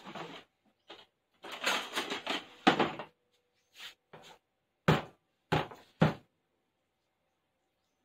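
Kitchen things being handled and set down, a rustling clatter, then three sharp knocks about half a second apart.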